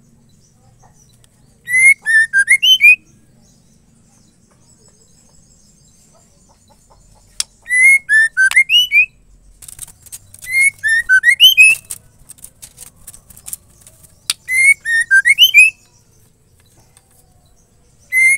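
Female white-rumped shama calling: the same short phrase of whistled notes sweeping down and up, about a second long, given four times a few seconds apart, with a few sharp ticks between phrases.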